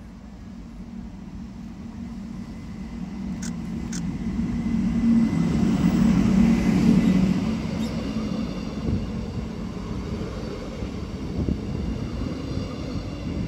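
Diesel locomotive D744 passing close at low speed, its engine's steady hum swelling to its loudest about halfway through. This is followed by the rumble of the towed ATR 115 railcar's wheels on the rails. Two sharp clicks come about three and four seconds in.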